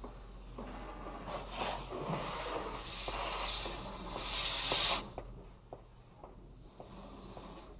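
A car being washed at a self-service car wash, heard from inside the car: a hissing, rubbing wash noise on the body and glass that grows louder and then stops sharply about five seconds in, followed by a few light ticks.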